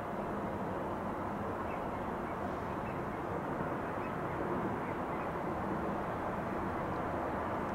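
Steady outdoor background noise, an even rumble with no clear rhythm or pitch, with a few faint short high chirps.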